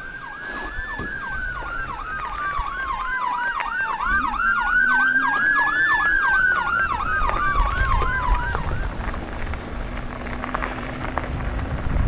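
Emergency vehicle sirens sounding two tones at once: a slow wail rising and falling over a few seconds, and a fast yelp sweeping about three times a second. Both stop about nine seconds in, and a low rumble rises after them.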